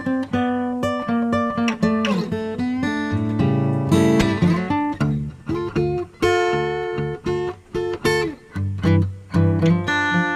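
Background music: a plucked guitar melody of short, quickly fading notes, some sliding in pitch.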